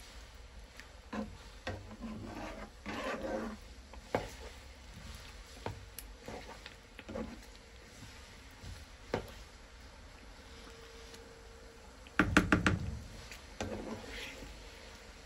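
Slotted spatula stirring thick curry in a nonstick frying pan: scattered taps and scrapes against the pan, and a quick run of loud knocks about twelve seconds in.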